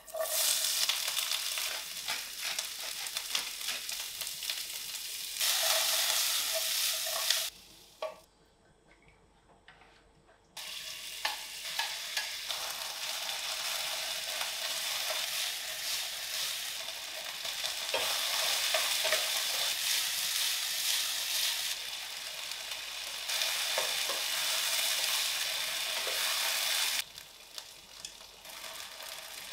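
Sliced onions, then pieces of beef, sizzling in hot oil in a frying pan while being stirred with a wooden spoon. The sizzle drops out for about three seconds roughly a quarter of the way in and goes quieter near the end.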